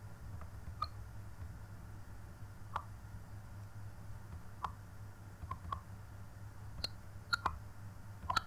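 Faint computer mouse clicks, single and irregularly spaced, about nine of them, over a low steady hum.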